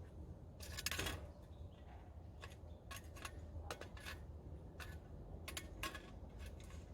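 Irregular clicks and scrapes of handwork, with one longer, louder scrape about a second in and scattered sharp ticks after.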